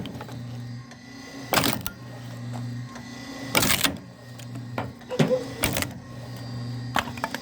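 Homemade log splitter's half-horsepower motor humming steadily through its 60:1 reduction gear, with about five loud, sharp cracks as the wood is forced apart.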